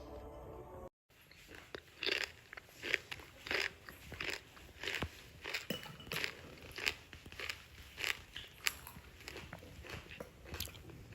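A person biting and chewing crunchy food, with crisp crunches starting about two seconds in and coming regularly, roughly three every two seconds.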